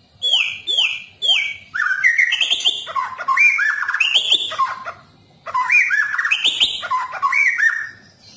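White-rumped shama (murai batu) singing: three quick downward-sweeping whistles, then two longer runs of varied whistled notes with a short pause about five seconds in.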